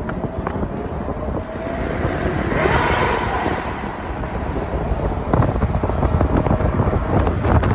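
Road and traffic noise from a moving taxi, with wind buffeting the microphone. A hiss swells and fades about three seconds in.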